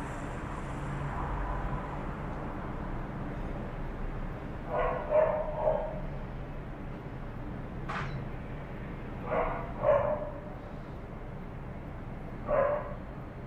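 Dogs barking in short, sharp barks, a pair about five seconds in, another pair around nine to ten seconds and a single bark near the end, over a steady background rumble. A sharp click is heard between them.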